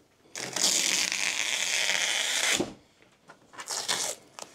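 Packing material being handled: a loud rasping rip or slide lasting about two seconds, then a few short rustles.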